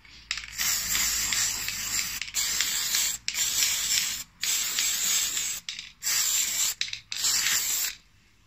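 Aerosol spray can hissing in six bursts of about a second each, with short pauses between them.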